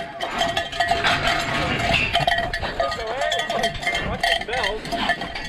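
Bull-rope bell clanging rapidly and steadily as a bull bucks. A wavering call rises and falls over it about three seconds in.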